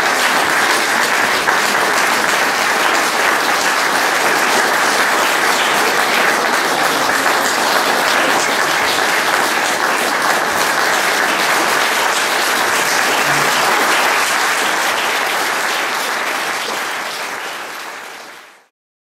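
Audience applauding steadily, the applause fading out near the end.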